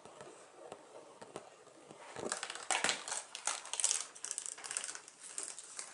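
Glass marbles rolling and clattering through a paper marble run: faint scattered clicks at first, then from about two seconds in a busy run of quick clicks and rattles.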